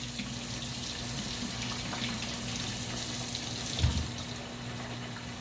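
Kitchen sink tap running steadily, with a low hum underneath and a single dull thump about four seconds in.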